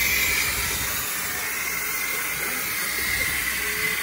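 Small steam locomotive standing and hissing steadily as it lets off steam, slightly louder in the first second.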